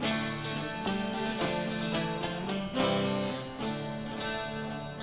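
Instrumental passage of Cypriot folk music between sung verses: a plucked laouto playing over viola and bass.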